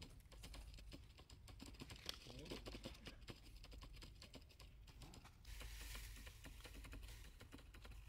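Faint, rapid, irregular small clicks and crackles, with a faint hiss coming in about five and a half seconds in.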